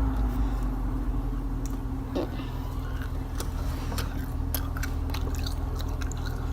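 Someone chewing a mouthful of homemade edible slime, with scattered small wet clicks and squishes from the mouth.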